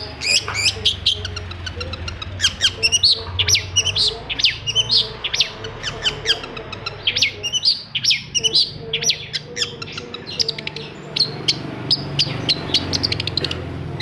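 Long-tailed shrike singing a rapid, chattering run of short, sharp notes that sweep downward, several a second, with a brief lull about halfway through. A steady low hum runs underneath.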